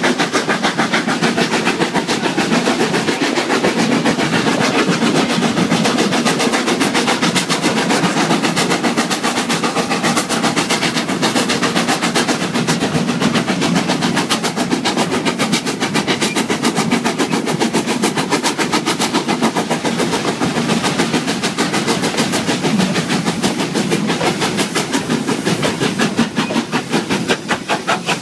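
Small steam locomotive running with an open wagon close behind it: a steady, rapid, even rhythm of exhaust chuffs and wheels clattering on the rails, with no break. The rhythm loosens a little near the end.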